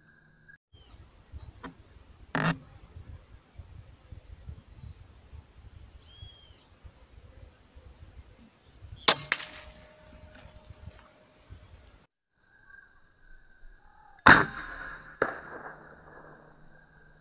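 Three sharp rifle shots several seconds apart, the last followed by a second crack about a second later, over a steady high buzzing of insects.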